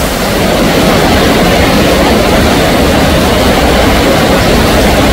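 Heavy rain pouring down: a loud, steady rush of noise with no breaks.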